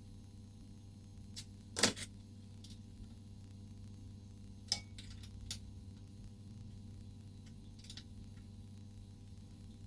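Steady low hum with a few short, faint clicks; the loudest is a brief rustling burst about two seconds in, with another sharp click about five seconds in.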